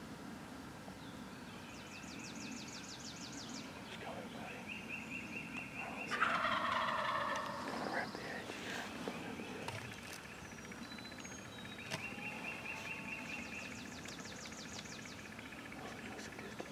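Wild turkey gobbler gobbling once, about six seconds in, a rattling call that is the loudest sound here. Fainter high, rapid trills sound before and after it.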